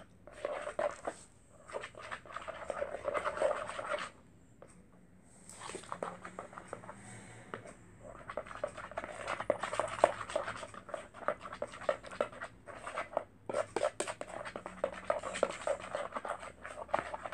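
Slime mixture of glue, paint and shaving cream being stirred in a bowl: rapid, irregular sticky clicking and scraping, with a short pause about four seconds in.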